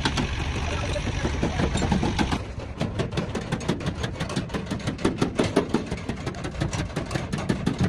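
An engine running. About two and a half seconds in, the hissy upper part of the sound drops away, leaving a fast, even chugging pulse.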